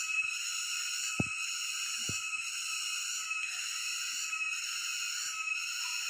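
Chorus of cicadas singing, a dense, steady high buzz with a slight pulse about once a second. A few soft low thumps in the first two seconds or so.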